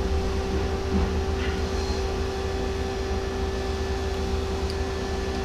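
Steady machine-shop hum: a constant pitched drone over a low rumble, with a couple of faint light clicks about a second in.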